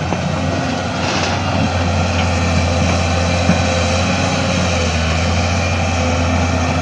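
Excavator engine running steadily under a low, even drone, with a few light clicks and knocks.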